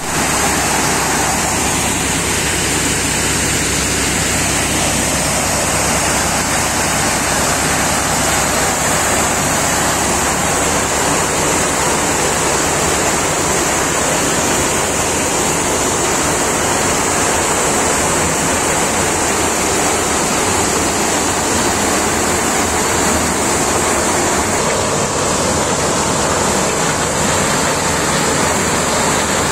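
Sonalika 64-inch-drum maize thresher running at working speed off a tractor's PTO, threshing maize cobs as kernels pour out: a loud, steady rushing noise with the tractor's diesel engine low beneath it.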